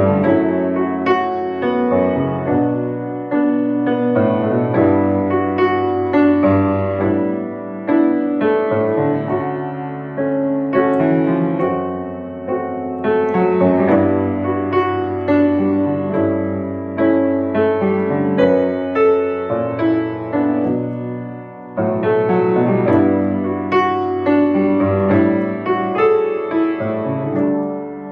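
Yamaha grand piano played solo, both hands sounding full seventh-chord voicings that change every second or two and ring on between changes.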